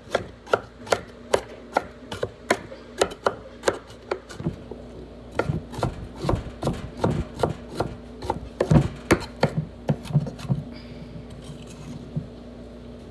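Kitchen knife chopping carrots on a wooden cutting board: a steady run of knocks, about two to three a second, that stops about ten and a half seconds in.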